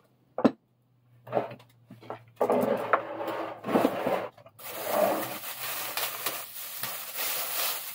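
Thin plastic bag rustling and crinkling as it is pulled off a bench vice, loudest in the second half. About half a second in, a vice is set down on the wooden bench with a single knock.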